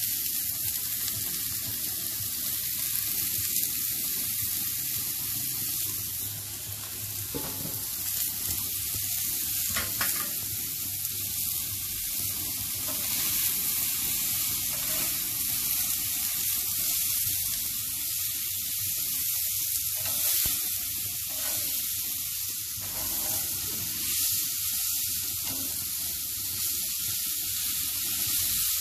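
Food sizzling and frying on a cast-iron griddle plate on a barbecue grill, a steady high hiss. There are a couple of faint short knocks a little after 7 seconds and near 10 seconds.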